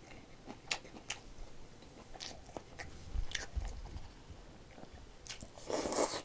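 A person chewing and biting food close to the microphone, with small crunchy clicks and mouth sounds, and a louder noisy burst near the end.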